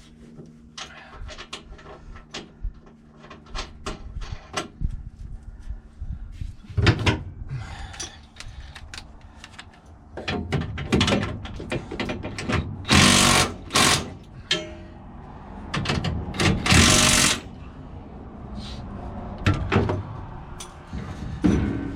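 Irregular knocks and clanks of tools and metal parts being handled during farm equipment work, with two loud bursts of hiss a little past the middle.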